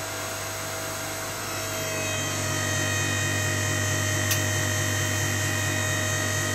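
Scrap vehicle-lift hydraulic pump, run by an electric motor on a VFD, working under load as the press ram builds pressure on an 18 mm steel plate. It hums steadily, grows louder a second or two in, and a high whine joins and holds. There is a single tick midway.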